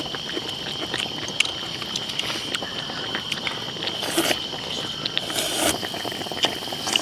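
Crickets trilling steadily, with eating sounds over them: chopsticks clicking against a plastic bowl and a slurp of noodles about four seconds in.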